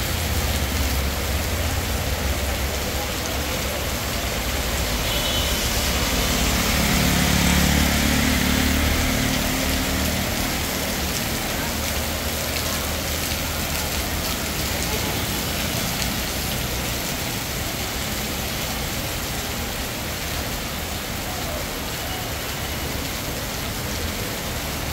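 Heavy rain pouring steadily onto a paved road. Vehicles pass through the wet street, their engines and tyre swish swelling over the rain and loudest about seven to nine seconds in.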